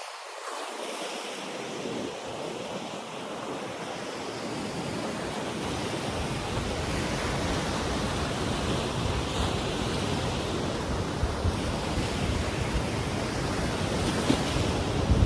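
Ocean surf breaking and washing on a beach, with wind buffeting the microphone in a low, gusty rumble that builds over the first couple of seconds. A few brief bumps stand out near the end.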